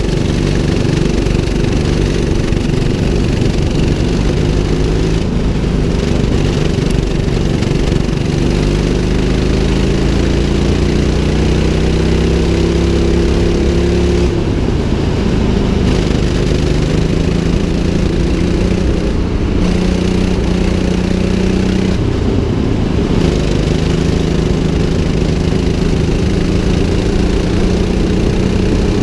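A rental go-kart's 200cc engine running under throttle, heard from the driver's seat. Its pitch climbs for several seconds, drops suddenly about halfway through as the throttle comes off, dips again briefly later, then holds steady.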